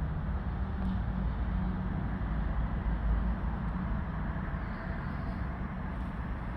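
An engine running steadily with a low rumble and a faint hum.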